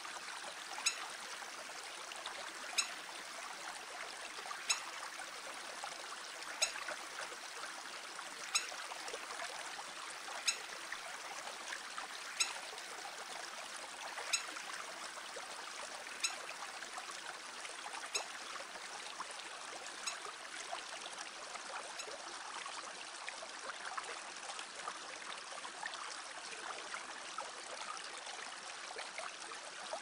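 Steady rush of a stream. A sharp tick comes about every two seconds and grows fainter in the second half.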